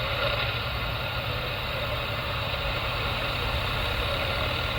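Steady hiss of CB radio static while the receiver waits for a reply on channel 38, over the low, even running of the vehicle's engine.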